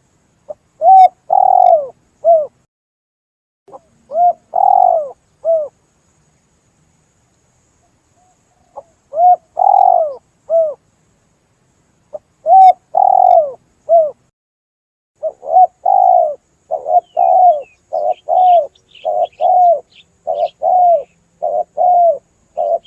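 Spotted dove (tekukur) cooing, the lure call used to draw in wild doves: phrases of three or four coos separated by pauses, then from about fifteen seconds in a faster, almost unbroken run of short coos. Faint chirps of a small bird come in near the end.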